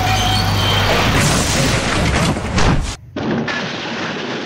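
Crash sound for a toy truck overturning: an engine hum gives way to a loud, noisy rumbling boom that cuts off suddenly about three seconds in, followed by a quieter hiss.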